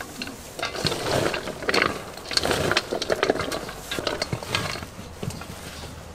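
Rapid, irregular clicking and scraping of kitchen utensils on food, heaviest through the middle few seconds.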